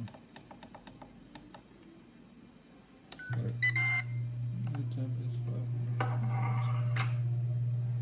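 Ninja Foodi indoor grill: its control-panel buttons click as the timer is set, a few electronic beeps sound about three and a half seconds in as it starts, and then a steady low hum sets in as the grill runs.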